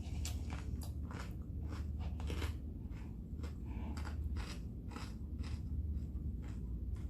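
Close-up chewing of crunchy Caesar salad, crisp lettuce and croutons, in a quick run of sharp crunches, several a second, over a steady low hum.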